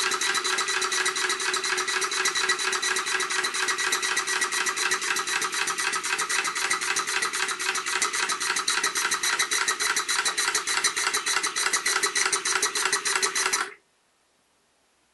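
Model live-steam engine running fast on steam, its exhaust giving a rapid, even stream of chuffs and hiss with a steady hum. It stops abruptly near the end as the steam valve is shut.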